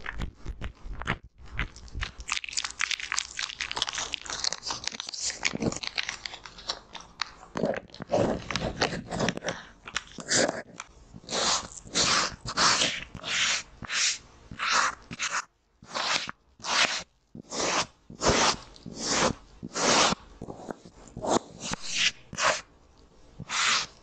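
Hands rubbing and squishing foaming cleanser lather, a dense, continuous scrubbing noise. From about ten seconds in it gives way to separate wiping strokes, nearly two a second, of a damp cotton pad rubbed over a strip of decorative tape.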